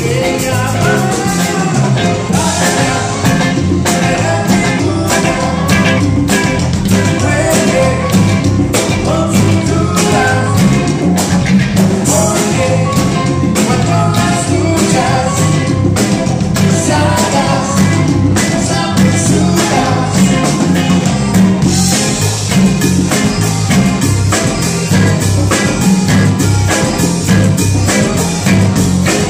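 A live Latin rock band playing loudly: electric guitar, keyboards, congas and drum kit over a steady beat.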